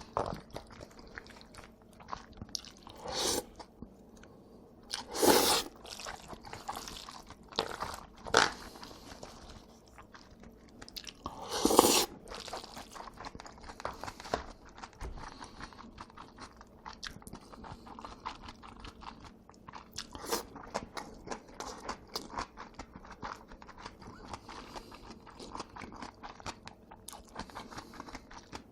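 Close-miked eating of jajangmyeon and jjamppong noodles: steady chewing and mouth sounds, with a few louder bursts about 3, 5 and 12 seconds in.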